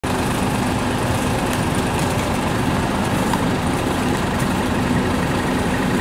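Concrete mixer truck's diesel engine running steadily with a low hum, driving the turning drum as concrete is let down the chute.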